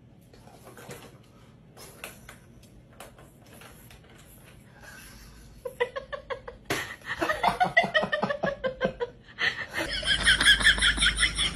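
Faint room sound at first, then from about halfway a person laughing hard in quick, rapid bursts. The laughing grows louder and higher-pitched near the end.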